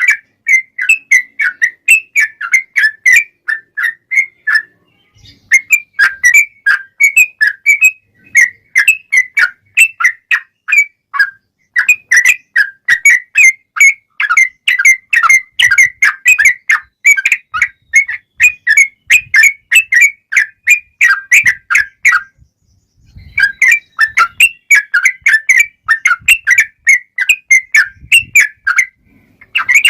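Yellow-vented bulbul (trucukan) singing in fighting mood: long, fast runs of quick whistled notes in a 'ropel panjang' rapid-fire song. The runs break off twice, about five seconds in and again about 22 seconds in.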